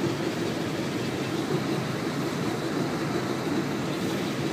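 Steady background machinery noise: an even rumble and hiss with no distinct strokes or knocks.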